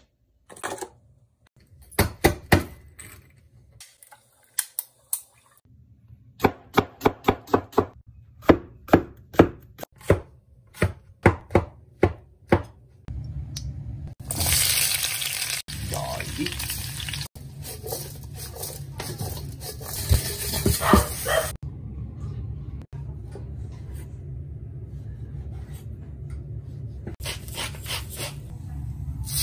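A knife chopping on a wooden cutting board in a quick run of sharp strokes, then a loud sizzling hiss from a hot wok as liquid is poured in, which settles to a softer steady sizzle and grows louder again near the end.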